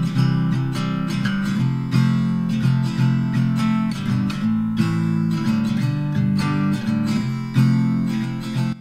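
Background music: strummed acoustic guitar with a steady rhythm, which cuts off at the very end.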